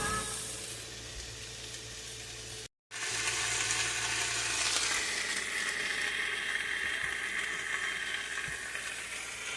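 Beef steak and onions sizzling as they fry in a pan: a steady hiss that cuts out briefly a little under three seconds in and then comes back louder.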